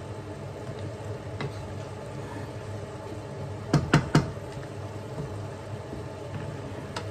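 Chicken feet bubbling at a boil in sauce in a nonstick frying pan while a wooden spatula stirs them. About four seconds in, the spatula knocks three times in quick succession against the pan, with a single lighter knock near the end.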